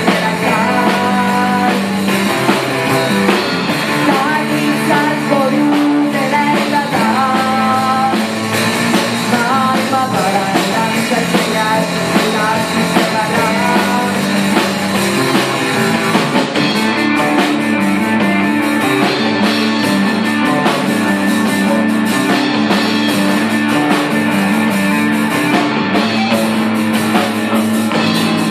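Punk rock band playing live: distorted electric guitar, bass guitar and drum kit, with a woman singing.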